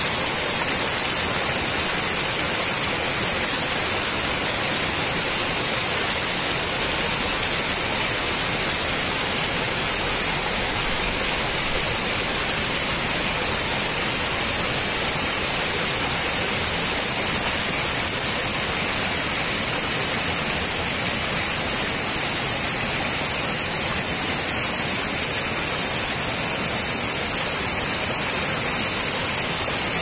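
Small rocky mountain stream cascading over boulders: a steady, even rush of falling water with a strong hiss.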